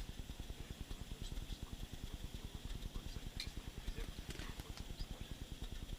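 Rapid, even knocking, about seven dull thumps a second: a metal cone jigged against the river bottom through an ice hole, the knocking method used to draw burbot to the bait.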